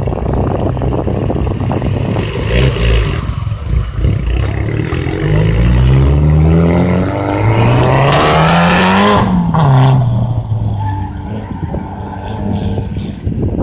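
Rally car engine accelerating hard: its pitch rises, dips at a gear change, climbs again and then drops away about nine seconds in. Crackling tyre and loose-surface noise comes before the acceleration.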